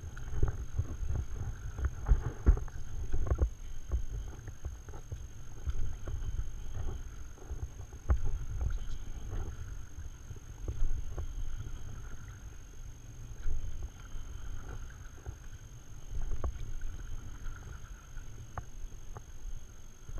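Stand-up paddle board paddling on calm water: the paddle blade dips and pulls a stroke every two to three seconds, with small splashes and water lapping at the board, over a low rumble of wind on the microphone.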